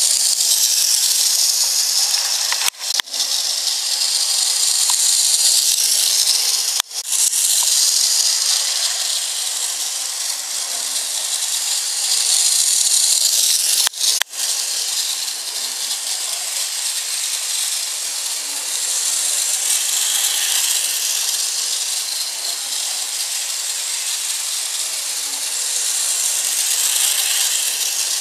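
Bachmann model trolley running at top speed on its track: a steady hissing whir and rattle from its small electric motor and wheels. The sound cuts out very briefly three times.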